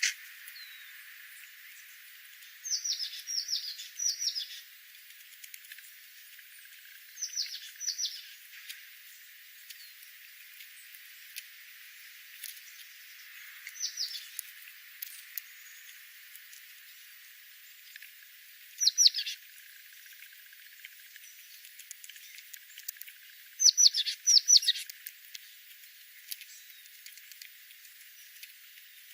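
A wild bird chirping: short, sharply falling high notes, given in clusters of one to three, five times with pauses of several seconds between them.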